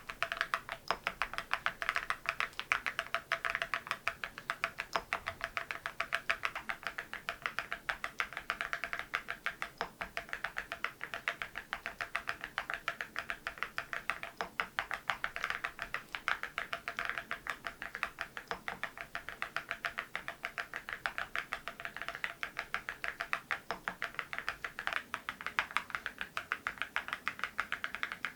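Continuous fast typing on a mechanical keyboard (MZ Y3) fitted with ceramic keycaps: a steady stream of sharp, clacky keystrokes, several a second.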